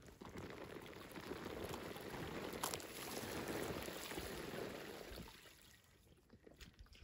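Fingers scraping and crumbling dry, loose soil in a dirt bank, a gritty rustle of trickling dirt with one sharp click, stopping suddenly a little after five seconds in.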